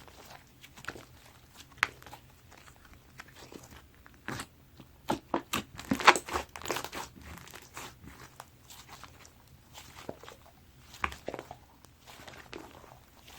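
White slime being squished and pressed by hand, making scattered crackling clicks and pops, with a quick run of sharper pops about five to seven seconds in.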